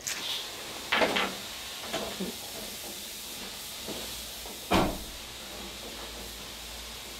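Thin wooden battens knocking and clattering against the plywood moulds of a small clinker boat hull as they are handled into place: a few sharp wooden knocks, two close together about a second in and the loudest just before five seconds, over a steady background hiss.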